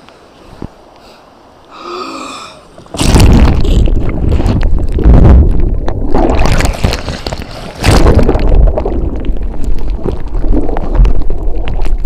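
Kayak capsizing and a paddler thrashing underwater through a hand-roll attempt: loud, churning splashing and gurgling water starts suddenly about three seconds in, surging irregularly with heavy buffeting on the microphone.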